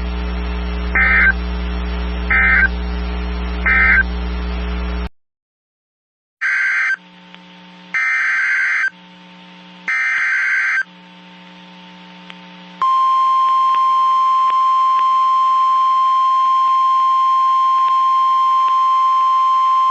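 Emergency Alert System signalling. Three short data squawks over a low hum close the previous message (the end-of-message burst). After a brief silence come three longer data squawks (the SAME header of the next alert). About 13 seconds in, a single steady, loud alert tone starts and holds: the 1050 Hz NOAA Weather Radio warning alarm.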